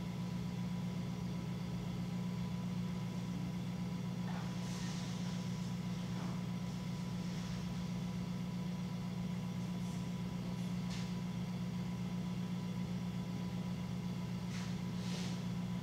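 Electric potter's wheel motor humming steadily while a tall clay jar is thrown, with a few faint soft brushes of wet hands on the clay now and then.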